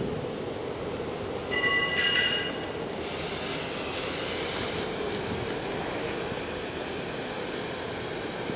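Oxy-fuel cutting torch on a pipe cutting and beveling guide, just lit, its flame hissing. A brief shrill squeal comes about a second and a half in, and a stronger hiss from about three to five seconds in.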